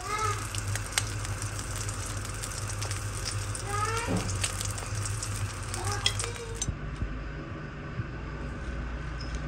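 Eggs frying in a little olive oil in a wok, a steady sizzle that cuts off about two-thirds of the way through.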